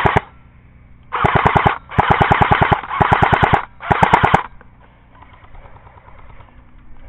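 Airsoft electric gun firing full-auto in short bursts, the gearbox cycling in a fast, even rattle. One burst cuts off just after the start, then four more follow, each lasting about half a second to a second.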